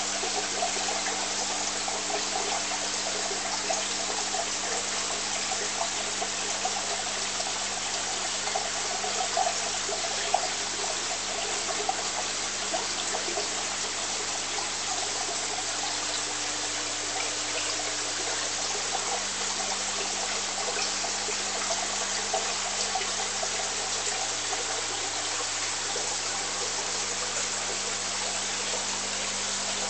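Aquarium water circulation: water trickling and splashing steadily, with small louder splashes now and then, over a low steady hum from the tank's pump.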